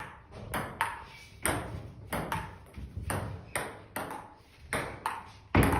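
A run of sharp taps or knocks, unevenly spaced at about two a second, many with a brief ringing tone after them. The loudest tap comes near the end.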